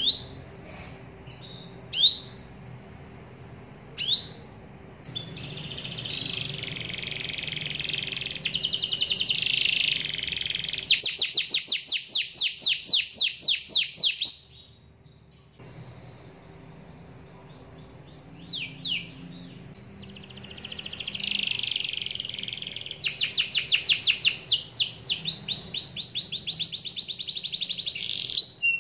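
Domestic canary singing: a few single rising chirps, then two long song phrases, each ending in a fast trill of rapidly repeated notes, with a pause of a few seconds between them.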